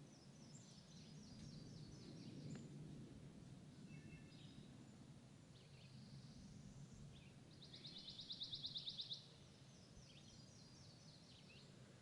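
Sparrows chirping faintly: scattered short high chirps, with one fast run of about a dozen rapid notes about eight seconds in, the loudest part. A low steady rumble of background noise sits underneath.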